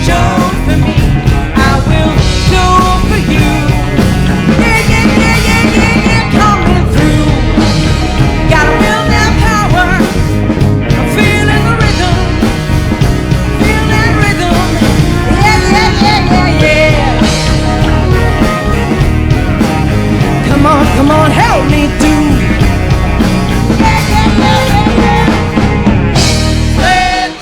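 Live rock band playing loudly, with a singer's voice over the band.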